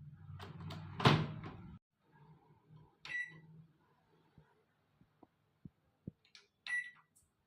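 LG microwave oven running with a low hum, a loud clunk about a second in, and the hum cutting off just after. Two short high beeps follow, a few seconds apart.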